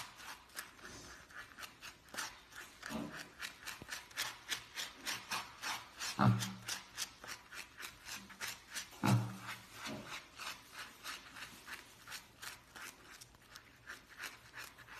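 Small bristle brush scrubbing a wet, soapy piglet, in short rhythmic strokes about three a second. Twice, about six and nine seconds in, the piglet gives a short low grunt, the loudest sounds here.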